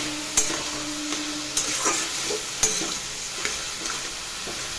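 Flat metal spatula stirring and scraping shredded cabbage around a metal kadai, with irregular scrapes against the pan over a steady sizzle as the cabbage fries down with cumin and ginger paste.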